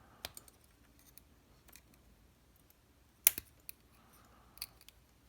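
Scattered small metal clicks and taps from a disassembled dimple lock's core, pins and tools being handled, with one sharper click a little past three seconds in and some faint scraping.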